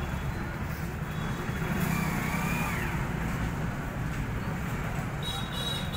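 Steady low rumble of vehicles running in the background, with a short rising-and-falling tone about two seconds in and a brief high tone near the end.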